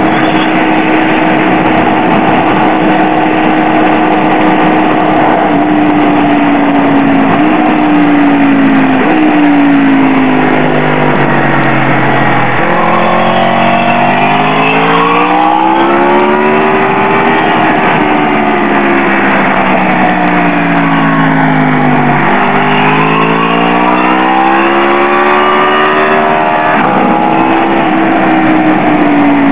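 BMW S1000R inline-four engine lapping a racetrack. It holds steady revs for about five seconds, then steps down through several quick downshifts while braking for a corner. After that it rises and falls in pitch as it drives out of the corner and through the following bends, with quick gear changes about two-thirds of the way in and again near the end.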